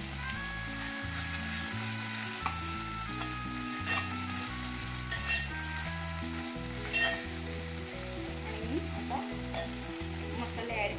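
Ginger-garlic paste, tomato and fried onion sizzling in hot oil in a metal pot as they are stirred with a metal spatula. The spatula scrapes the pot with a few sharp clinks.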